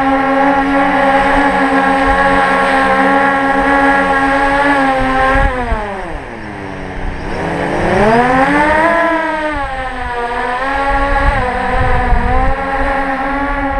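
X8 coaxial octocopter's brushless motors and propellers whining steadily at hover. About five and a half seconds in, the pitch slides steeply down as the motors throttle back while the craft is held by hand. About two seconds later it climbs again as they spin up for a hand launch, then settles.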